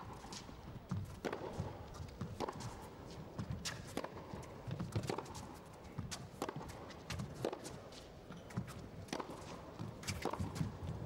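Tennis rally: the ball struck back and forth with rackets, a sharp hit about every second and a bit, with lighter footsteps between the hits.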